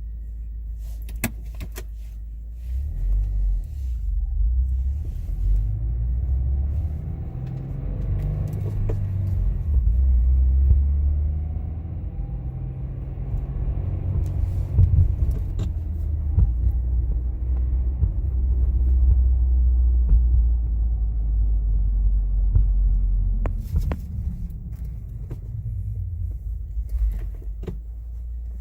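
2016 Subaru WRX's turbocharged flat-four engine and drivetrain rumbling while driving, with a faint whirring whine that rises and falls in pitch as the car speeds up and slows down. The whirring sounds like a supercharger, and the owner suspects the differential, though a dealer called it normal. A few sharp clicks are heard.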